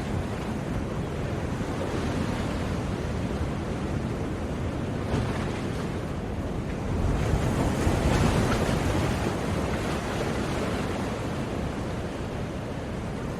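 Ocean surf: a continuous wash of waves. About seven seconds in, a wave breaks and washes in, louder for a couple of seconds before settling back.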